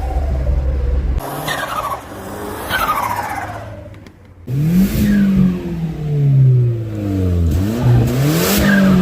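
Audi A4 B5's turbocharged 1.8-litre four-cylinder engine being driven hard. Two falling turbo whooshes come on lift-off in the first half. From about halfway the revs climb and drop several times.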